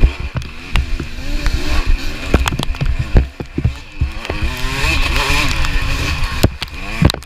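Dirt bike engine revving up and down repeatedly as it is ridden hard, with sharp knocks and clatter throughout.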